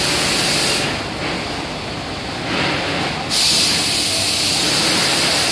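Loud compressed-air hiss from a case-packing robot's pneumatic suction gripper. The hiss cuts off about a second in and switches back on abruptly a little past three seconds, over the steady running noise of packing-line machinery.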